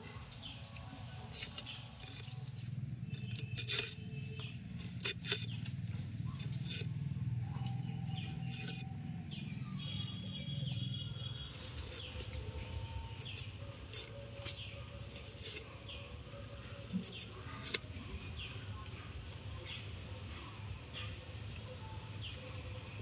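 A blade peeling the tough skin off a thick amaranth stalk: a run of short, irregular scraping clicks.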